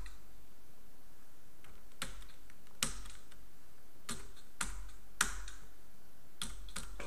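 Scattered keystrokes on a computer keyboard, about seven separate clicks at irregular intervals of roughly half a second to a second.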